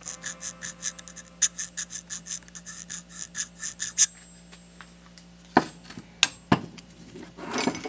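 A metal scribe point dragged across the ridged, roughly faced surface of a large aluminum disc, rasping in a quick run of short scrapes over the turning marks. A few sharp clicks and a louder rustle follow near the end.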